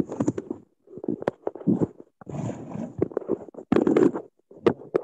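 Handling noise from a phone used as the camera: irregular scrapes, taps and knocks on its microphone as it is picked up and moved.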